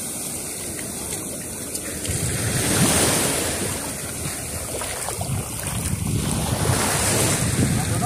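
Shallow sea waves washing around the shore, with wind buffeting the microphone in low rumbling gusts.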